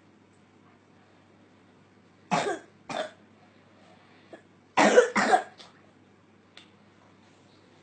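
A child coughing, in two pairs: two short coughs a little over two seconds in, then two louder coughs close together about five seconds in. It is a cough from post-nasal drip.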